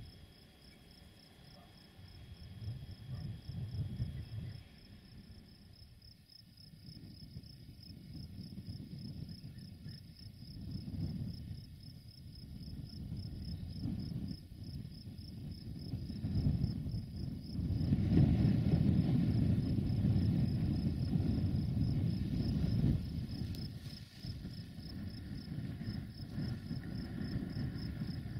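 Crickets trilling steadily in a fast, even pulse, over a low, uneven rumble that swells and is loudest about two-thirds of the way through.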